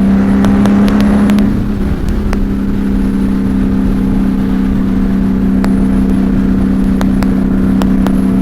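Honda Valkyrie's flat-six engine running through six-into-six Cobra pipes while riding, with wind rumble on a microphone inside the rider's helmet. The engine note climbs a little, dips about a second and a half in, then holds steady.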